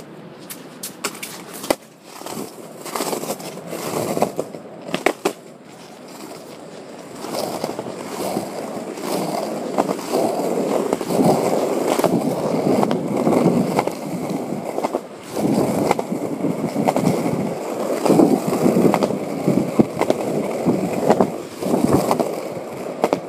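Skateboard wheels rolling on concrete pavement, a continuous rough rumble with sharp clicks as they cross cracks and seams. The ride starts about seven seconds in; before that there are scattered knocks and clatter of the board being handled.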